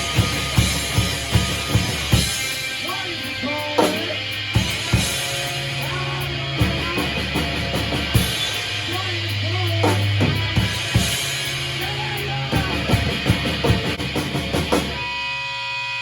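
Rock band playing loud in rehearsal, with drum kit and electric guitar. Near the end the playing stops, leaving a steady amplifier hum.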